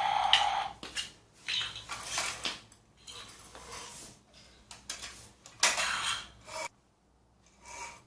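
Hard rocks and plastic toy parts clattering and scraping in irregular bursts as a toy bulldozer pushes them through sand, with a louder clatter a little before six seconds in. A steady tone stops under a second in.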